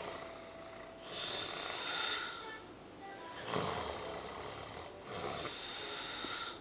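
A man snoring in his sleep: a snore with a low rumble about three and a half seconds in, between two long hissing breaths, one about a second in and one near the end.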